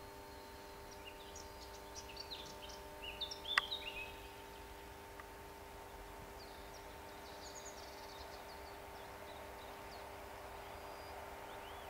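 Small birds chirping and twittering in scattered bursts, with one sharp click about three and a half seconds in. Under them is a faint steady hum, and a faint rumble grows near the end as a distant electric train approaches over the junction.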